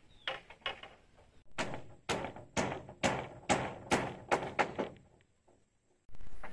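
A hand tool striking wood or bamboo in a steady series. Two lighter knocks come first, then about eight sharp blows at roughly two a second, each with a short ringing tail.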